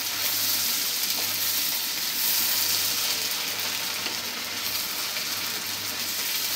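Small puti fish sizzling steadily as they shallow-fry in hot, foaming mustard oil.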